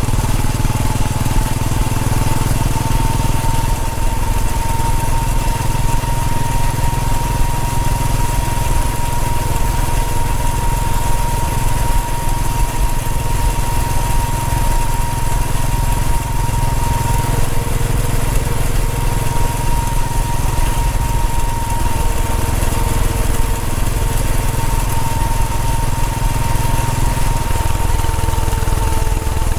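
Royal Enfield Bullet 500's single-cylinder engine running under way at a steady speed, a low, even engine note with a thin steady high tone above it.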